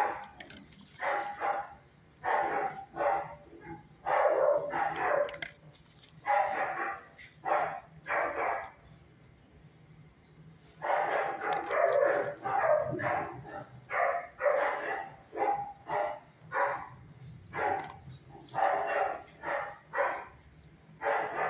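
Dogs barking in shelter kennels, in runs of short, sharp barks with a lull of about two seconds near the middle.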